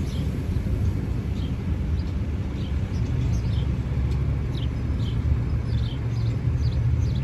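Steady low rumble of a car running, with short, high, falling chirps scattered through it.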